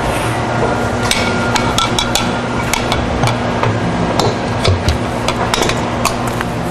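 Many irregular sharp clicks and knocks as the blender's mesh safety cage is opened and the blender is handled, over a steady mechanical hum.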